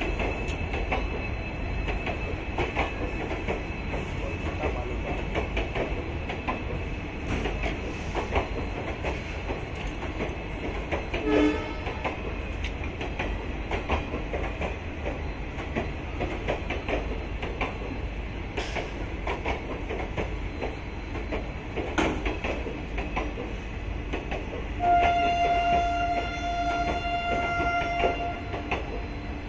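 Passenger coaches rolling past on the track, their wheels clattering steadily over the rail joints. About 25 s in a train horn sounds once, held for about three seconds.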